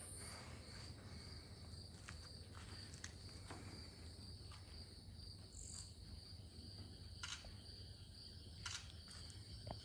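Faint, steady high trilling of crickets, with a few soft clicks scattered through.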